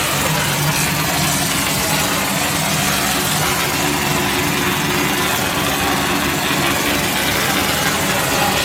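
Wall-plastering machine's motor running steadily: an even hum over a constant hiss, with no change in speed.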